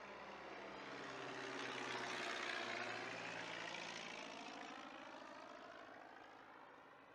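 Light propeller airplane flying past, its engine drone swelling to a peak about two to three seconds in and then fading away, with the pitch dropping slightly as it passes.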